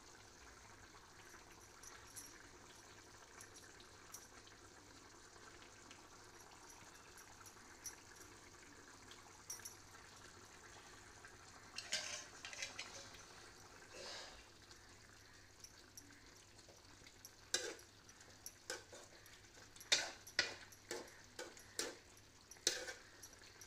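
Chicken curry simmering in a metal kadai with faint bubbling. In the second half a spoon stirs it, with a run of short clinks against the pan near the end.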